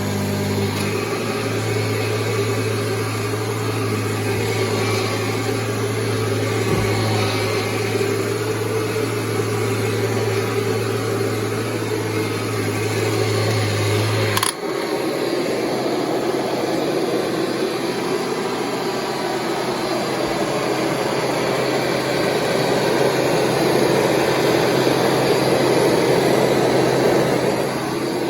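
Kirby G5 upright vacuum cleaner running steadily while vacuuming. About halfway through there is a click, after which the low hum drops away and the running noise shifts higher.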